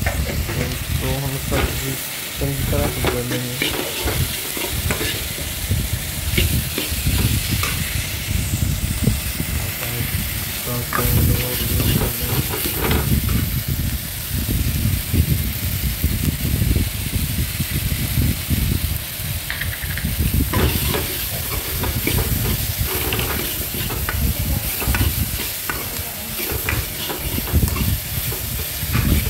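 Steel spoon scraping and clinking against a metal kadhai as diced potatoes, onions and tomatoes are stirred, with the vegetables sizzling in hot oil under the repeated clinks.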